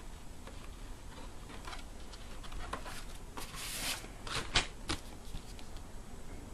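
Paper and cardboard rustling as an LP's inner sleeve is slid out of its album jacket. There is a longer rustle about three and a half seconds in, then a few light clicks.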